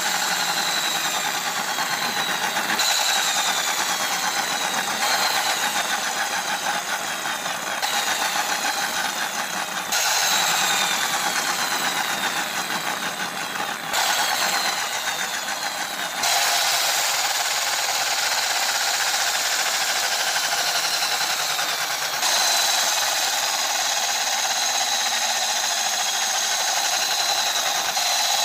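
Small plastic toy cars' gearboxes whirring and rattling as they roll through shallow water, with a thin whine that falls in pitch within several stretches. The sound changes abruptly several times where clips are joined.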